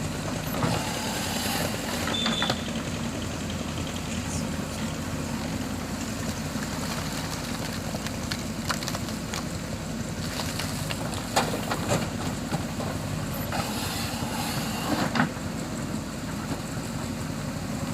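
JCB 3DX backhoe loader's diesel engine running steadily, with scattered knocks and clattering on top, a cluster of them about two-thirds of the way through.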